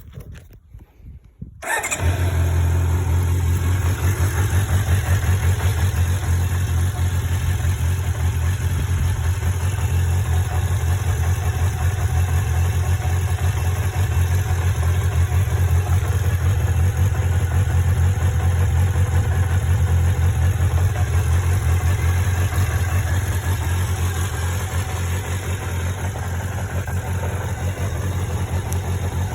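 Kawasaki Zephyr 400χ's air-cooled inline-four engine starting about two seconds in and then idling steadily. The seller describes the engine as being in excellent condition with no abnormal noises.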